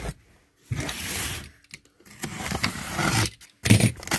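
A taped cardboard box being opened by hand: scraping, ripping sounds of cardboard and packing tape, then the flaps pulled apart with a few sharp knocks near the end.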